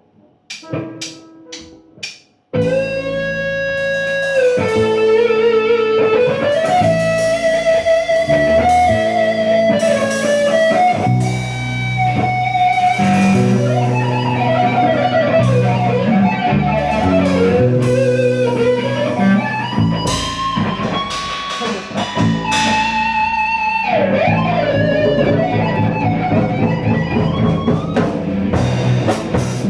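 Rock band improvising: an electric guitar plays a sustained lead melody with slides and pitch bends over bass notes and drums. It comes in loud about two and a half seconds in, after a few quiet clicks and notes.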